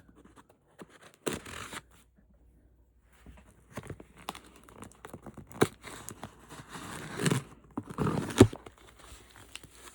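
Shipping packaging being torn open by hand: a short rip about a second in, then a longer run of ripping and crinkling with sharp clicks, loudest near the end.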